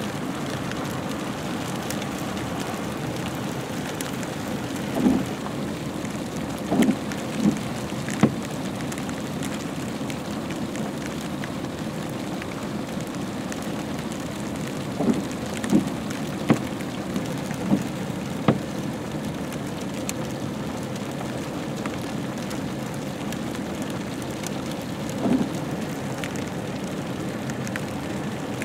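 Freezing rain and sleet falling steadily, a continuous hiss of precipitation on icy ground, with a scattering of short, sharp louder taps from pellets or drops striking close by.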